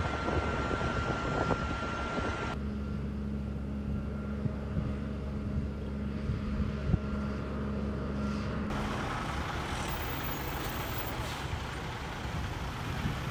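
Outdoor field-footage background of steady engine rumble and noise. It changes abruptly twice, and in the middle stretch there is a steady low engine hum.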